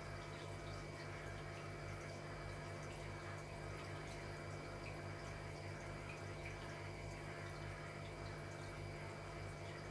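Steady low hum made of several fixed tones, with faint scattered ticks over it.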